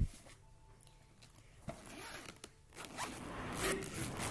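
The zipper of a soft fabric carry bag being pulled shut in ragged strokes, starting a little under two seconds in and running more steadily near the end. A short knock at the very start comes as the lid is pressed down.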